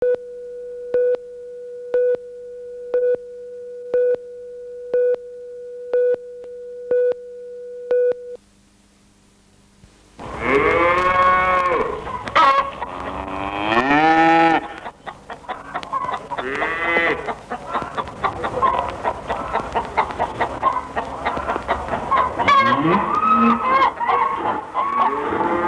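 Video countdown leader: a steady tone with a short beep each second, eight beeps, cutting off after about eight seconds. After a brief silence farm animals start calling, a run of long calls that rise and fall in pitch.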